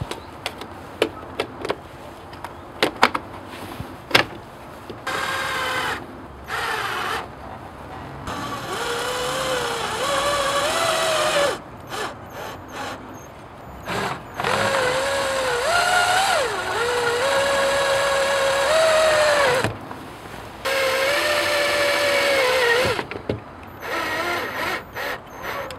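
Power drill driving 3/4-inch self-tapping sheet-metal screws through a solar screen frame into the window frame, in about six separate runs of a second to several seconds each. Its whine rises and dips in pitch with trigger and load. Sharp clicks and knocks of handling the screen and drill come in the first few seconds.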